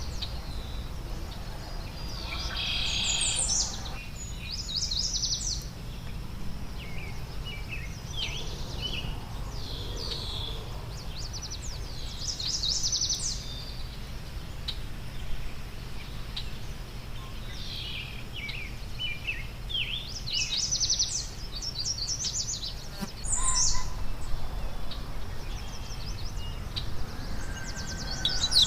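Small wild songbirds chirping and calling, in short high notes and quick trills scattered through, over a steady low background rumble.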